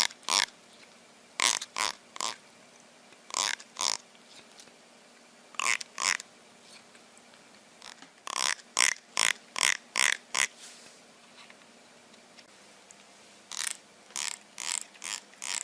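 A dog barking in short, sharp bursts that come in quick clusters of two to six, with pauses of a second or two between clusters.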